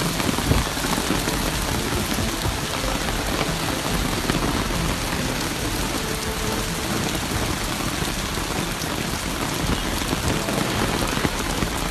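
Heavy rain pouring down steadily, a dense even hiss of drops beating on surfaces.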